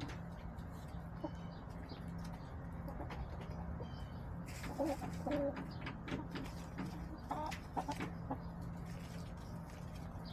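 Backyard hens clucking in short, soft calls, one cluster about halfway through and another near the end.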